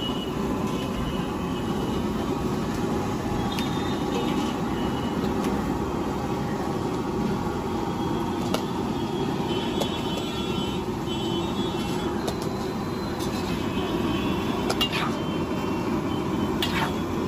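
Steady low rumble of a busy street-food stall, with a metal ladle clinking against a steel pan a few times.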